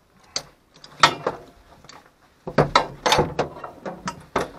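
A run of irregular clicks, knocks and rustles from things being handled in a stopped rally car's cockpit. The loudest cluster comes about two and a half to three and a half seconds in.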